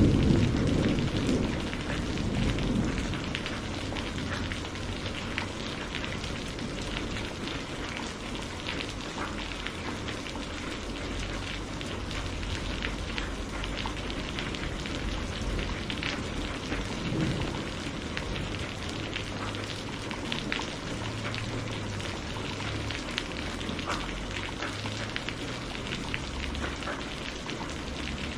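Steady heavy rain, with many separate drops ticking on a surface. A roll of thunder is dying away over the first few seconds.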